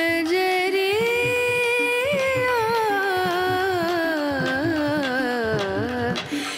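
Background music in an Indian classical style: a single melody line holds long notes that slide slowly downward, with small ornamental turns.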